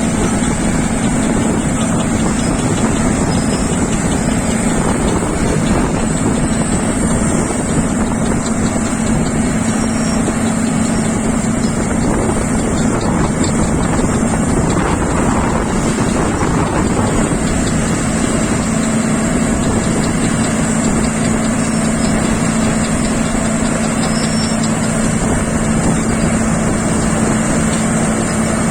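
A motor running steadily with a constant hum, over wind noise on the microphone.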